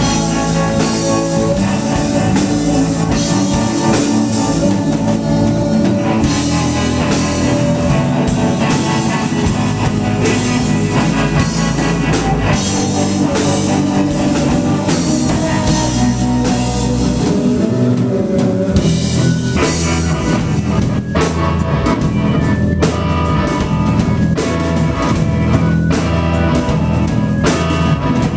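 Live rock band playing: drum kit, electric guitar, bass guitar and keyboards.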